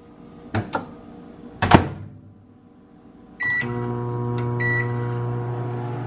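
A few knocks and a thud as the glass dish goes in and the microwave door is shut, then about three and a half seconds in a keypad beep and the Sharp Carousel microwave oven starts running with a steady hum; a second keypad beep follows about a second later as more time is added.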